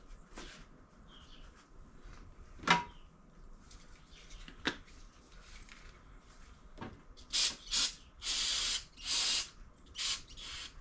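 Workbench handling sounds: a sharp knock of a part being set down, a lighter tap two seconds later, then a run of short hissing bursts near the end.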